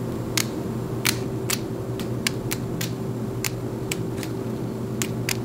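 Scissors snipping through the HD lace of a closure wig along the hairline: a string of short, sharp snips at an irregular pace, about two a second. A steady low hum runs underneath.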